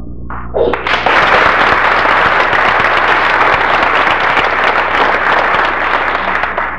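Audience applauding, beginning about a second in and dying down near the end.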